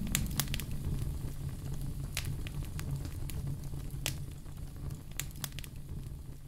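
Wood fire crackling in a fireplace: scattered sharp pops, a few a second at most, over a low, steady rumble.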